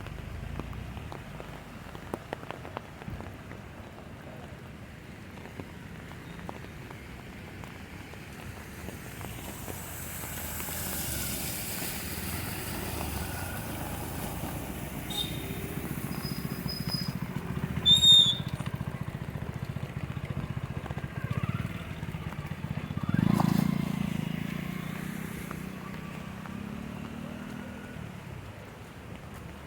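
Motor vehicles passing on a flooded street: engine noise swells and fades, with a short sharp high chirp about 18 seconds in and a louder vehicle going by a few seconds later.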